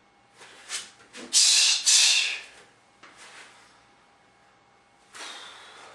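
Short hissing bursts from a martial artist moving through a solo self-defense technique, strike by strike. The loudest are two half-second bursts back to back about a second and a half in, with smaller ones before them and a fainter one near the end.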